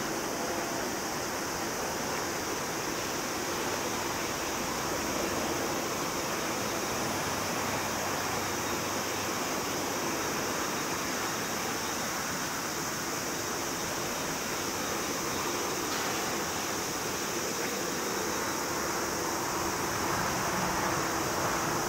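CFM56-7B turbofan engines of a Boeing 737-800 freighter running at taxi power: a steady jet hiss and whine that swells slightly near the end.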